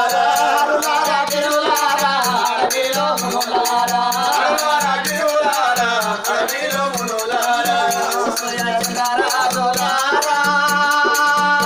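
Telugu Oggu Katha folk music: a melodic sung line over a steady beat, with constant jingling from ankle bells. The voice settles into long held notes near the end.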